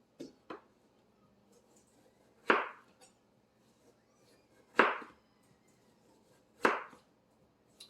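Knife chopping down through canary melon rind: two light taps near the start, then three sharp chops about two seconds apart.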